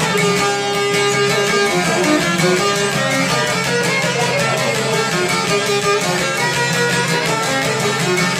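Traditional folk music played live: a violin carries the melody over two long-necked lutes strummed in a fast, even rhythm.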